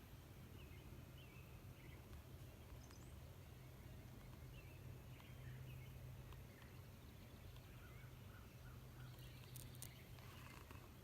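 Quiet outdoor ambience with faint, scattered bird chirps over a steady low hum.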